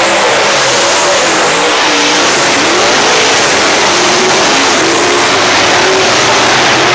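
A pack of dirt modified race cars' V8 engines at racing speed on a dirt oval, loud and dense, with several engine notes rising and falling as the cars accelerate and lift through the turns.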